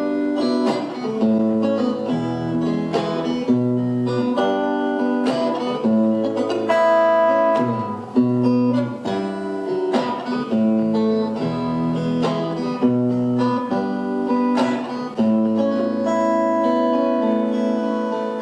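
Instrumental break in an acoustic ballad: acoustic guitar strumming steady chords, with a few long held notes of a melody line on top and no singing.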